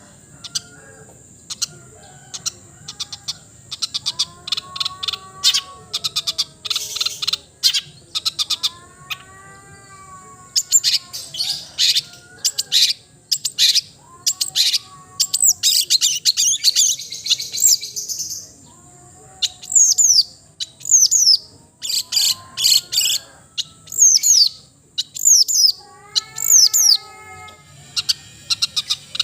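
Long-tailed shrike (cendet) singing a varied song full of mimicked phrases: fast harsh chattering runs, softer warbled notes, and in the second half a string of sharp falling whistles.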